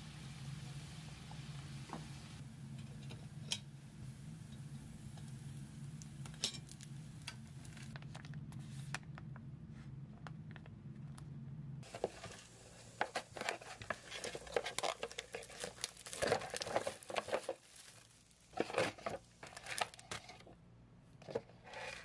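Arancini deep-frying in oil: a steady sizzle over a low hum, with a few sharp pops. About halfway through it gives way to loud, irregular crinkling and tearing as a paper cup noodle and its lid and packaging are handled and opened.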